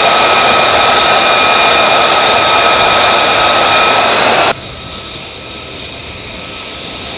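Jet aircraft engine running, a steady loud rush with high whining tones. About four and a half seconds in it cuts abruptly to a quieter, similar jet noise.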